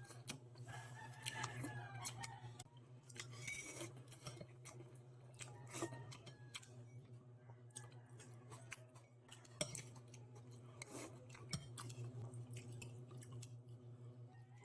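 Eating sounds: scattered light clicks of cutlery against dishes, with chewing, over a steady low hum.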